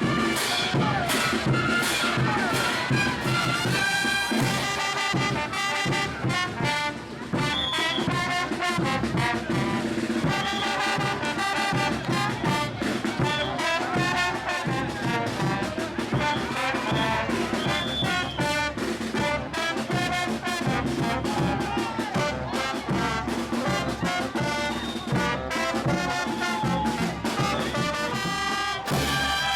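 Brass band playing a lively traditional tune, trumpets and trombones to the fore over a steady beat.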